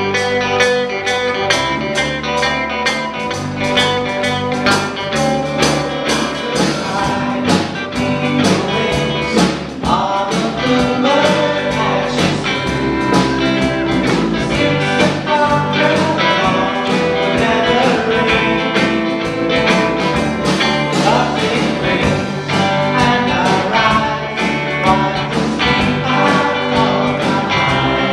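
Live band playing a song with electric guitars, bass and drums keeping a steady beat, and a man singing.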